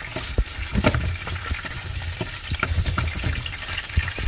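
Cockroaches frying in hot oil in a pan, the oil sizzling with many sharp crackles and pops as a wooden spatula stirs them.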